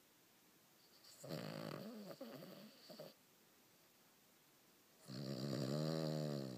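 Cavalier King Charles Spaniel snoring in its sleep: two long snores a couple of seconds apart. The first, about a second in, is rough and wavering; the second, near the end, is a louder, steady buzzing tone.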